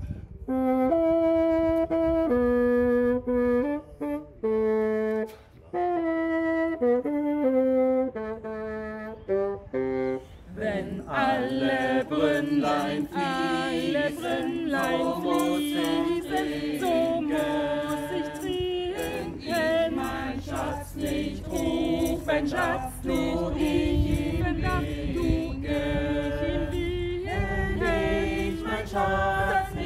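A bassoon plays a slow melody alone. About ten seconds in, a small group of women and men joins, singing a song together with the bassoon accompanying.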